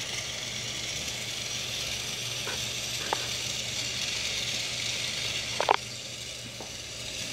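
K'nex toy cake mixer running on its motor: a steady whir from the motor and plastic gears, with a few light plastic clicks, the sharpest about two-thirds of the way in.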